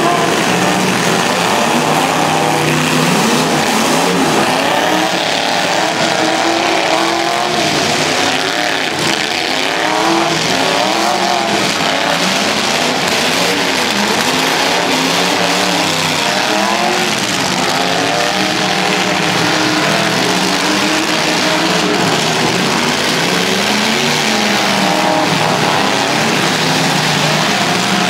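Engines of several demolition-derby trucks revving up and down at once. Their pitches rise and fall and overlap continuously.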